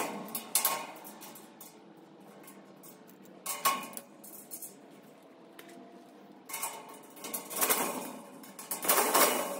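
Metal clinks and scrapes of screws and parts being handled on a metal greenhouse frame: a few sharp clinks, then longer bursts of scraping and rattling near the end as a screw is turned in with a hand screwdriver.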